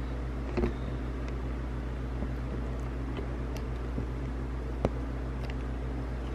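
A steady low machine hum, like an appliance or fan motor running, with a couple of light knocks: one about half a second in, and a sharper one near the five-second mark.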